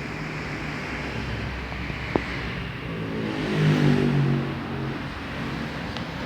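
A motor vehicle's engine running, swelling and rising in pitch a little past the middle, then easing off; a single short click about two seconds in.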